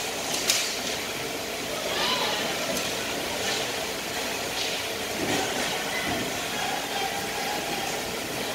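Ice hockey play in an indoor arena: skates scraping the ice and sticks hitting the puck over the steady hum of the rink, with one sharp crack of a stick on the puck about half a second in.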